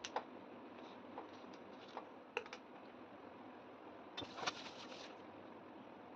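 Scissors snipping through the string and the dry, charred banana-leaf wrapping of a baked fish parcel: a few sharp clicks spread over the first two and a half seconds. About four seconds in comes a brief cluster of crackling as the crisp leaves are handled.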